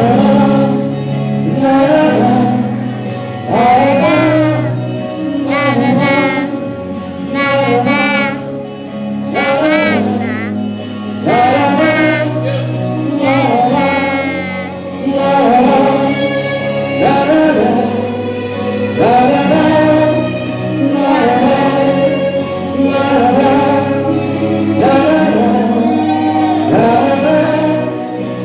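Gospel music: a lead melody with vibrato over sustained accompaniment, sung without clear words.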